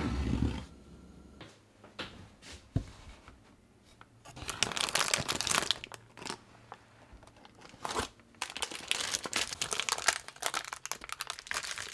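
Parchment baking paper crinkling and tearing as it is peeled away from the sides of a chilled baked cheesecake, in two spells of crackly rustling, the second longer. A low thump sounds right at the start.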